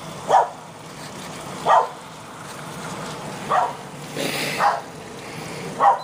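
A dog barking: five short single barks spaced a second or two apart, with a brief rustling hiss a little past the middle.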